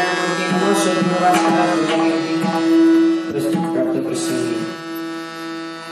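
Marathi kirtan devotional music: a long steady held note sounds over drum strokes and bright clashes of hand cymbals, getting quieter near the end.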